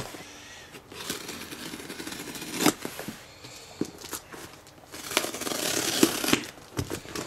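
Knife slicing and scraping through packing tape on a cardboard box, with small clicks and scrapes, then a longer rasping stretch about five seconds in as the tape is pulled away.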